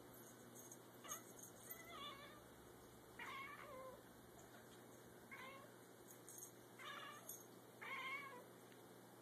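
Bengal cat and Singapura kitten chattering at a feather toy: about six short, wavering calls, roughly a second apart.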